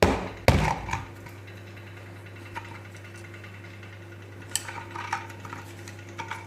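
Metal parts of a dismantled ceiling fan being handled on a bench: a few sharp clanks in the first second, then scattered light clicks and taps near the end, over a steady low hum.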